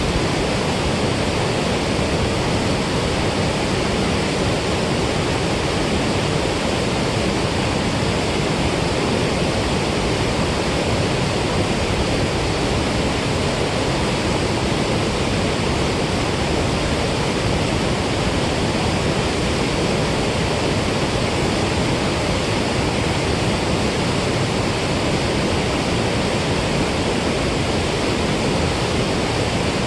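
Water from the dam spillway rushing and churning, a loud, steady rush with no change.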